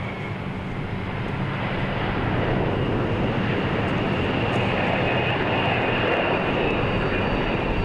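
Jet engines of a KDC-10 tanker aircraft running: a steady jet rumble with a thin high whine, growing a little louder over the first couple of seconds, then holding steady.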